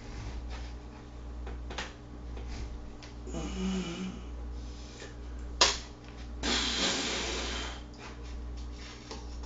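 Small handling noises over a steady low hum: a short scuffle about a third of the way in, one sharp click a little past halfway, then about a second of hissy rustling.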